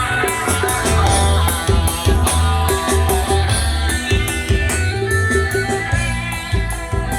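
Background music with guitar over a bass and a steady drum beat.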